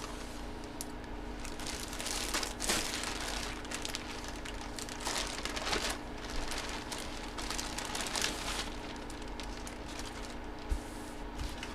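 Plastic packaging and trading cards being handled and crinkled, in several irregular bursts of rustling, over a steady low hum.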